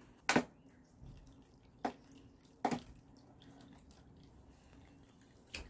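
Water poured slowly from a cup onto loose soil in a plastic tray: a faint trickle, with four short, sharp drip-like clicks spread through it.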